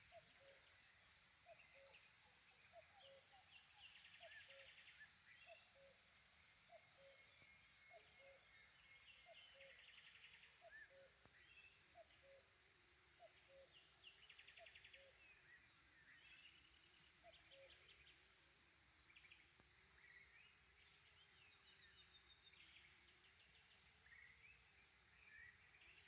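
Faint morning birdsong: several songbirds giving high chirps and trills, with a run of short, low hoots repeating about once a second through the first half, the owl of the title.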